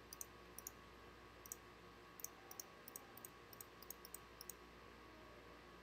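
Near silence with about fifteen faint, sharp clicks from the computer being worked, scattered over the first four and a half seconds.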